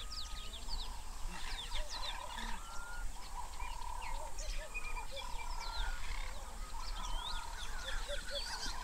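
Several wild birds calling at once: many short chirps and whistles overlapping, with a repeated held note underneath and a steady low rumble beneath it all.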